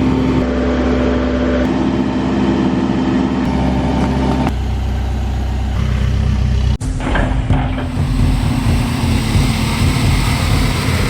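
Case 580 Super N backhoe loader's diesel engine running steadily; the sound cuts out for an instant about seven seconds in and comes back as a rougher, noisier engine sound.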